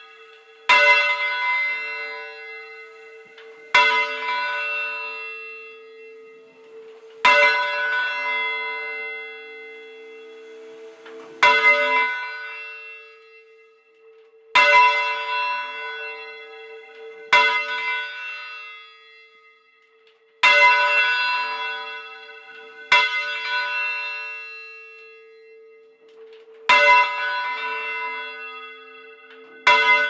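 A single church bell rung full circle: its clapper strikes nine times, about once every three seconds, alternating handstroke and backstroke. Each stroke rings out and decays slowly, and a low hum note sustains between strikes.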